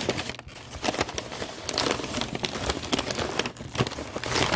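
Crumpled brown kraft packing paper crinkling and rustling as hands dig through it and pull it aside, a dense run of irregular crackles.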